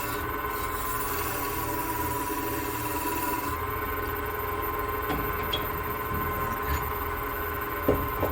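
Wood lathe running steadily with a constant hum. A high rubbing hiss from a wire burning lines into the spinning cedar stops about three and a half seconds in, and a few light knocks follow near the end.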